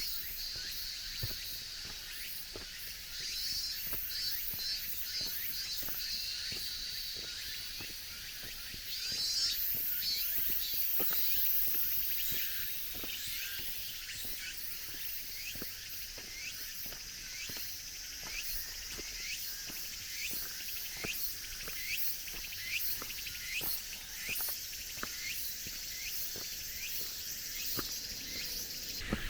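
Cicadas calling in a steady high buzz that swells loudest about a third of the way in, with a short chirping call repeating over and over through the second half. Walking footsteps on a forest path sound at an even pace underneath.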